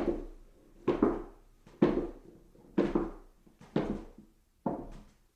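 Footsteps on stairs: six slow, evenly paced footfalls, about one a second, each a sharp thud that dies away quickly.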